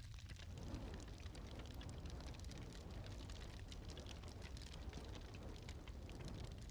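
Wood fire crackling in a stone hearth: many small sharp pops over a low steady rumble, with a soft rushing hiss that swells in about half a second in and fades near the end.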